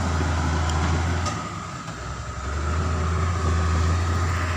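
Diesel engine of a small D4 crawler bulldozer running under load while pushing against an oil palm tree. It eases off about a second in and builds up again from about two and a half seconds in.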